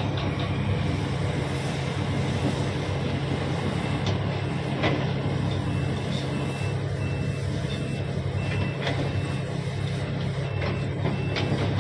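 Heavy diesel engines of a large excavator and dump trucks running steadily. From about six seconds in, a reversing alarm beeps in an even series, and a couple of sharp knocks sound over the engine noise.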